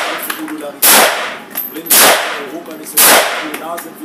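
SIG Sauer MCX semi-automatic rifle in .223 firing three shots, about one a second. Each loud crack rings out in the indoor range.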